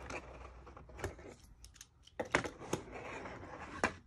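Plastic articulated finger extensions clicking and clattering as the hand bends and straightens them: a scattering of light clicks, bunched about two seconds in and again near the end.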